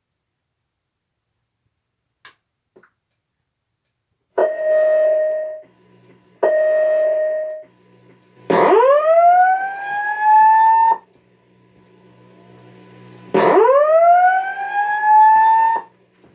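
Simplex voice-evacuation fire alarm sounding through a speaker: two steady tones about a second long, then two slow rising whoops, each sweeping upward over about two and a half seconds, the evacuation tone that comes before the spoken message.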